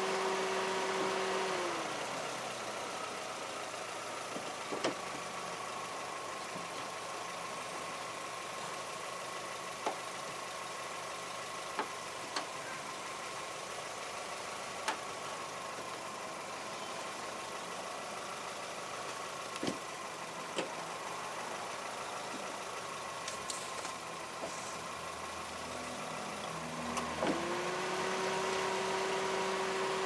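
A steady motor hum winds down and fades about two seconds in, then winds back up to speed near the end. Between the two, a few scattered light clicks and knocks can be heard.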